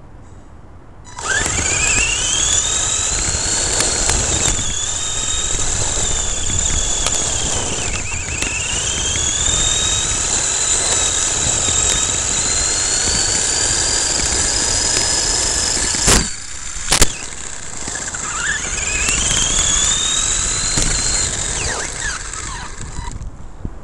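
An Ansmann SC4 radio-controlled short-course truck's motor and gears whine, the pitch rising and falling with the throttle, over a rumble of tyres on gravel. It starts about a second in. About two-thirds through, the whine cuts briefly and two sharp knocks come.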